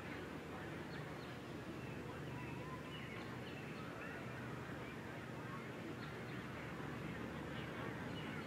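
Steady outdoor background of many distant voices talking at once, with short high chirps scattered through it.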